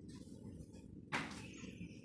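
A single sharp knock or bang about a second in, over a steady low rumble.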